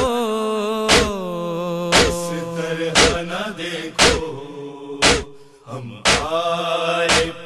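Noha interlude: wordless male voices hold and slide long notes, and a sharp slap about once a second keeps time, the chest-beating (matam) rhythm of a noha.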